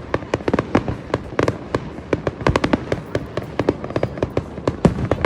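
Fireworks going off in a dense, irregular run of sharp pops and bangs, several a second.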